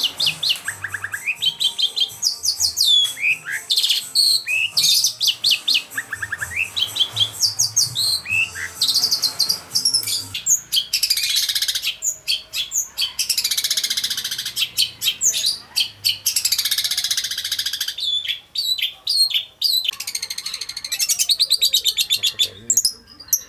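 Long-tailed shrike (cendet) singing hard and almost without pause: a varied stream of high chirps, sliding whistles and fast trills, broken by harsher rapid rattling passages.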